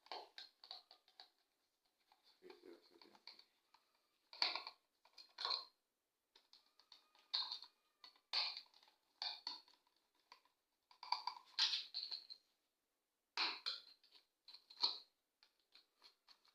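Irregular clicks and short scrapes of a screwdriver turning the mounting screws of a plastic two-gang wall switch, with the switch parts being handled between turns.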